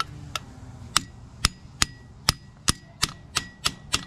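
Small ball-peen hammer tapping on a puller clamped on the hub of a stuck cast iron hand feed wheel. There are about eleven sharp metallic taps with a short ring, coming quicker toward the end, to shock the wheel loose on its shaft.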